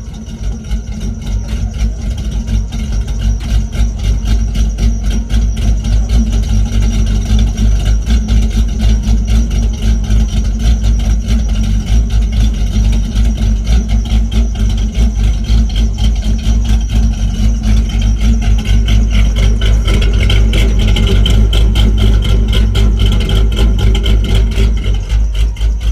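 LS1 V8 engine idling, heard at the exhaust as a steady, rhythmic pulsing with a strong low rumble. It idles at a speed the owner wants set higher.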